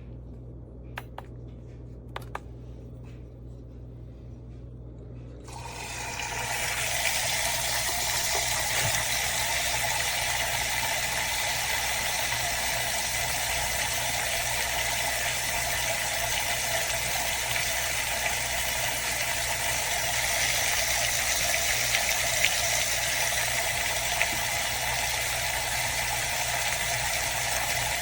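Two light clicks, then an automatic drip filter coffee maker starts up with a steady rushing hiss of water that runs on unbroken.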